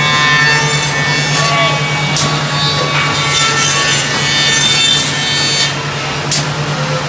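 Single-head CNC oval tenoning machine running, its spindle motor humming steadily while the cutter machines oval tenons on curved wooden chair parts, with a few short, sharp sounds.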